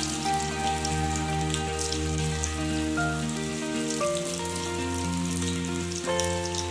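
Soya kababs deep-frying in hot oil in a kadhai, a steady fine crackle and sizzle. Background music of held chords plays over it, changing notes every second or two.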